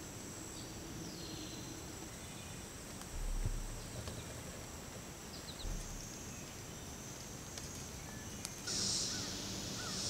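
Woodland ambience of insects and birds: a steady high insect drone with a few short bird chirps and two brief low thumps a few seconds in, then a louder pulsing insect buzz starting near the end.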